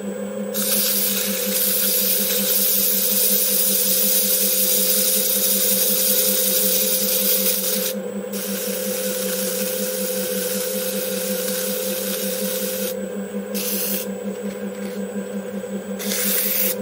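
DIY CNC lathe running with a steady hum while sandpaper is held against the spinning 3D-printed metal case, making a loud rasping hiss. The hiss breaks off briefly about eight seconds in, stops around thirteen seconds, and returns in short strokes near the end.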